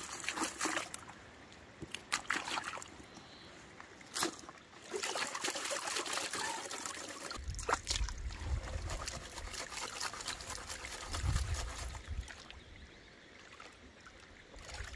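Creek dirt and gravel tipped from a bucket into a plastic gold pan, with scattered ticks of falling grit, then the pan swirled and dipped in shallow creek water, water sloshing and trickling over its rim.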